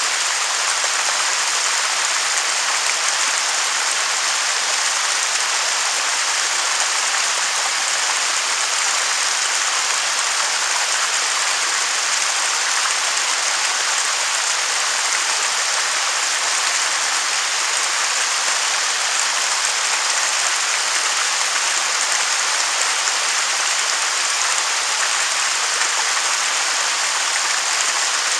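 Waterfall: a steady, unbroken hiss of falling water, bright and even, with little low rumble.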